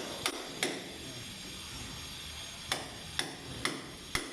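Sharp hammer strikes, two about half a second apart near the start, then a pause, then four more about half a second apart in the second half.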